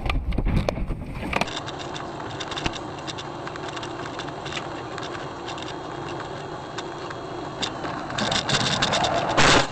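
A car driving, heard through a dash camera: a steady noise with scattered small knocks, then a loud harsh noise lasting about a second near the end.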